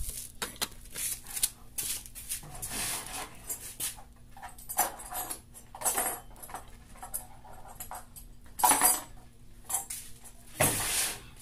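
Irregular knocks, clicks and rustles of plastic and small metal parts being handled, with a few louder scraping bursts, over a faint steady low hum.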